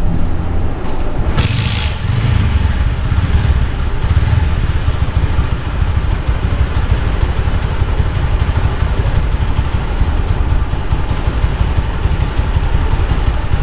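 TVS Apache RTR 160 4V single-cylinder engine idling steadily with its tappets freshly adjusted, running smooth and clean ("fresh") without tappet clatter. A brief hiss comes about a second and a half in.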